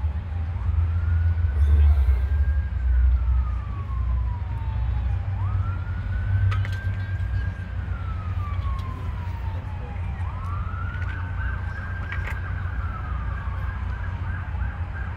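Emergency vehicle siren wailing: three slow cycles, each a quick rise, a held high note and a long fall, about every five seconds. A steady low rumble runs underneath.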